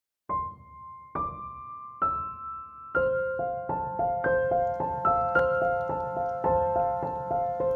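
Background piano music: three single notes, each a little higher than the last, then from about three seconds in a gentle, repeating pattern of notes, about three a second.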